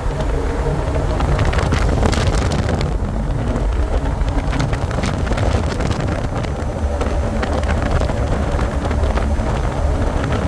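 Jet boat's engine running steadily under way, a low rumble, with wind buffeting the microphone and crackling throughout.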